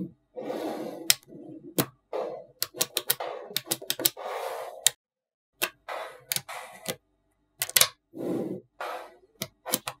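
Small magnetic balls clicking as they snap together, in irregular sharp clicks, between short rattling runs of under a second as clusters of balls shift against each other. There are brief pauses about five and seven seconds in.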